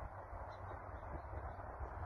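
Steady outdoor background hiss with a gusty low wind rumble, and a couple of faint, short distant bird calls about half a second and a second in.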